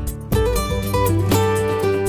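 Background instrumental music with plucked string notes.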